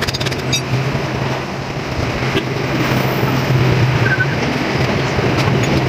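A steady low mechanical hum over constant background noise, with a few light clinks in the first half second.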